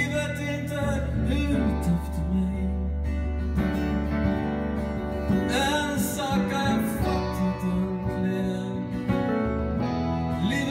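Acoustic guitar strummed steadily in a live solo song, with a melody line over the chords.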